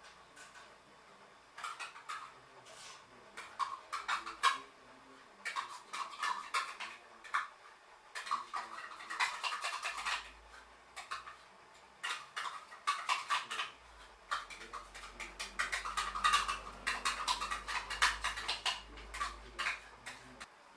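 Irregular light clicks, taps and scrapes of a clear plastic cup and fingers against a stainless steel saucepan as a thick cream is scraped out of the cup into the pan.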